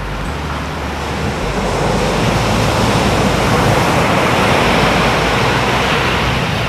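Ocean surf: a wave's rushing wash swells over a few seconds and then eases off, over low held tones.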